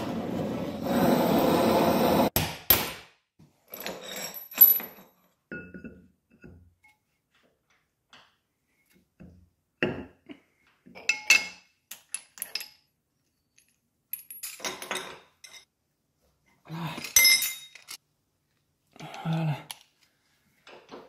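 Gas-cartridge blowtorch hissing steadily for about two seconds while heating an aluminium centring sleeve so it expands to slip on, then cutting off. After that, scattered metallic clinks and knocks as steel parts and tools are handled and set down.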